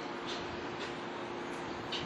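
Steady outdoor background noise with a constant low hum and a few faint, short high chirps.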